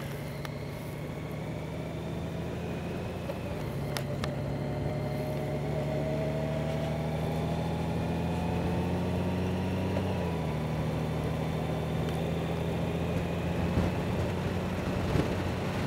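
Honda Gold Wing's flat-six engine running at low road speed. Its pitch climbs slowly, then drops about ten seconds in.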